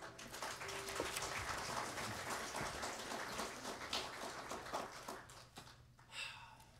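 Congregation applauding, a dense patter of clapping that dies away after about five and a half seconds.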